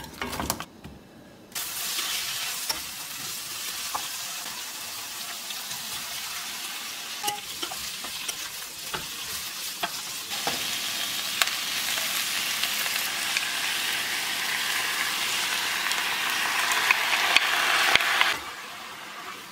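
Vegetables and fish-cake strips sizzling in hot oil in a ceramic-coated frying pan as they are stir-fried, with the wooden spatula clicking and scraping against the pan. There is a short clatter at the start. The sizzle grows louder toward the end and then cuts off suddenly.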